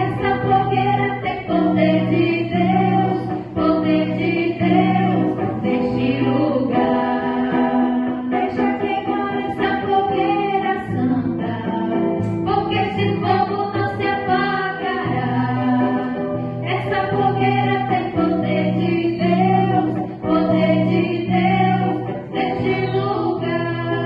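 Gospel worship song: several voices singing together over an instrumental backing with a steady bass line.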